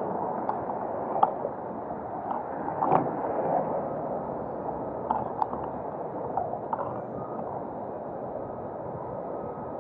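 Steady rushing noise of a power wheelchair rolling along a paved path, with wind on the microphone and a few light knocks and rattles from bumps, the loudest about a second and three seconds in.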